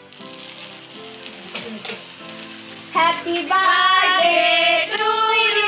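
A handheld sparkler fountain fizzing, with a few crackles, over soft music. About three seconds in, loud singing starts and takes over.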